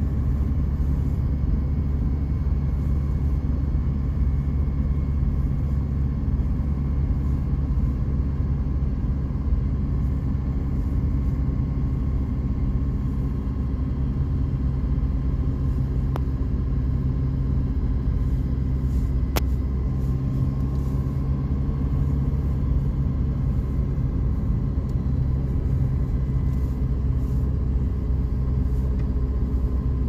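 Steady low rumble of a car driving along, engine and road noise heard from inside the cabin.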